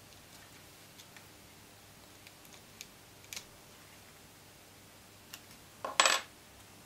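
Small 3D-printed PETG handpiece parts handled and screwed together by hand: a few faint, light clicks, then a short louder scrape about six seconds in.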